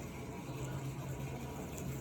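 A steady low hum with an even hiss behind it.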